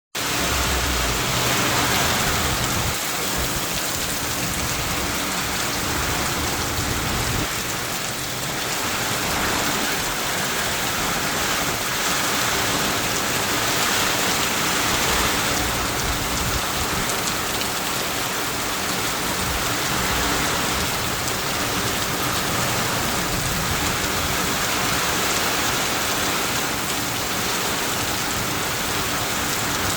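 Steady, loud rain pouring down during a thunderstorm, with a low rumble in the first few seconds.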